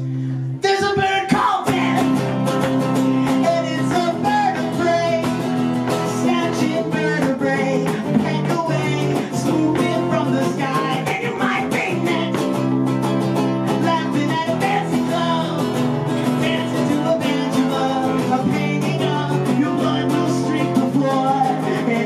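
A man singing over a strummed acoustic guitar, live through a PA. A held guitar chord rings at the start, then the strumming and the vocal come in about a second in and carry on steadily.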